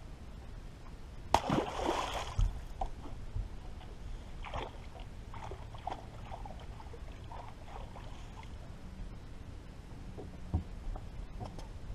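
Lake water splashing and sloshing at the side of a bass boat as smallmouth bass are put back in the water, with one sharp splash about a second in and smaller splashes and a few light knocks after it.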